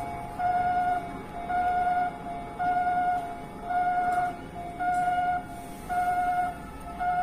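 Japanese railway level-crossing warning alarm sounding: a steady two-note electronic tone about half a second long, repeating roughly once a second.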